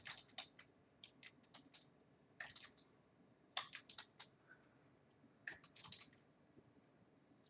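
Faint computer keyboard typing: short bursts of quick keystrokes with pauses between them.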